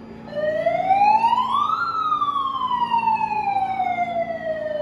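Siren wail from a handheld megaphone: one tone that rises for about a second and a half, then falls slowly.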